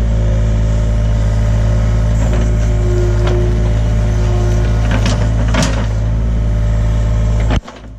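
John Deere 35G mini excavator's diesel engine running steadily, with a hydraulic whine that rises and falls as the controls are worked and a few knocks and scrapes from the bucket digging. The sound cuts off sharply near the end.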